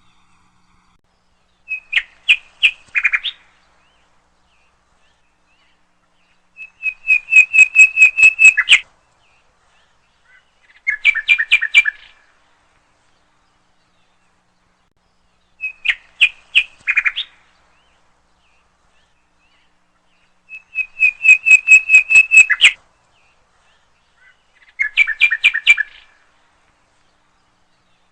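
A nightingale singing: six short phrases of rapid repeated whistled notes, each one to two seconds long, with pauses of a few seconds between them and no background sound. The same three-phrase sequence plays twice.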